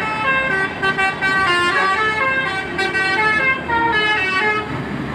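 Telolet horn on an NPM bus playing a quick tune of stepped, multi-pitched horn notes. The tune stops near the end, and the low rumble of vehicles is left.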